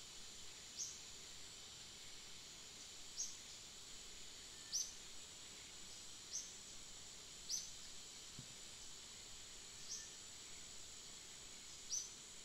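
Forest ambience: a steady, high insect drone with a short, high chirp that falls in pitch, heard seven times about every one and a half to two and a half seconds.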